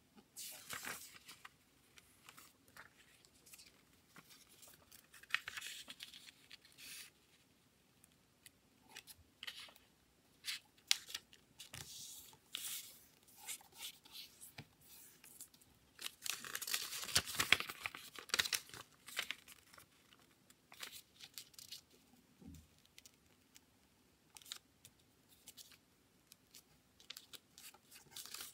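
A square sheet of printed origami paper being folded and creased by hand: scattered rustling and crinkling of the paper with small sharp ticks as the folds are pressed flat. The longest and loudest stretch of rustling comes a little past halfway through.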